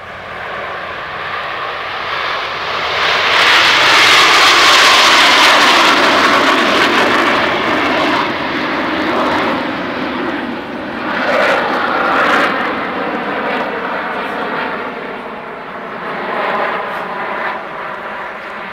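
A formation of Canadair CT-114 Tutor jet trainers flying past, their single turbojet engines making a loud rushing jet noise that builds to its loudest about four seconds in and then eases off with a slowly falling whine. The noise swells again twice later on as the formation passes.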